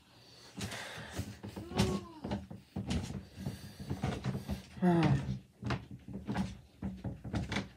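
A run of knocks and bumps, like a door or cupboard being handled, with two short pitched squeaks about two and five seconds in.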